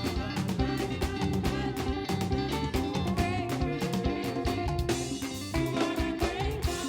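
Live praise band playing African gospel praise music with a steady drum beat, bass and guitar, mostly instrumental between the leader's sung lines.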